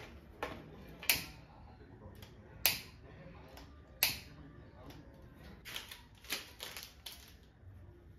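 Scattered sharp clicks and knocks: a few single ones spaced over the first half, then a quick run of several in the second half.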